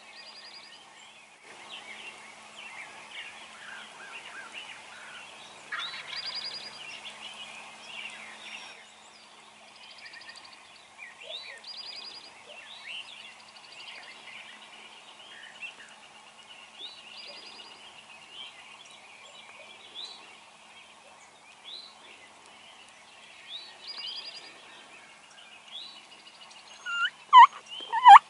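Songbirds chirping and trilling throughout. Near the end come three or four loud wild turkey calls, each falling in pitch.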